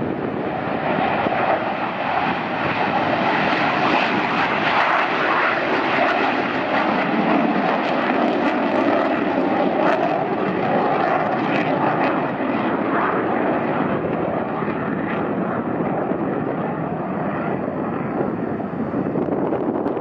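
McDonnell Douglas F-15C Eagle's twin Pratt & Whitney F100 turbofan engines at takeoff power: a loud, steady jet noise whose upper hiss slowly fades over the second half.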